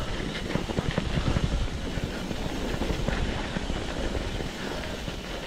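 Mountain bike riding over a rough, rocky trail: a continuous low rumble with a dense, irregular clatter of knocks and rattles from the tyres and frame, easing slightly near the end.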